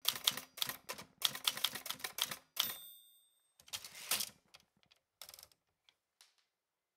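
Typewriter keys clacking rapidly for about two and a half seconds, then a bell rings once. A longer sliding rush follows, and a few last scattered clacks.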